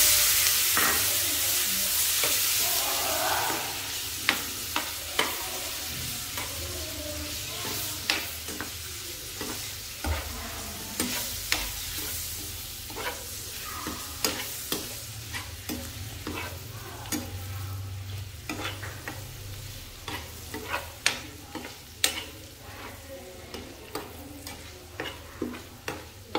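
Dried fish frying in a sweet and sour sauce in a frying pan, sizzling loudest at first and then dying down, while a spoon stirs and knocks against the pan many times.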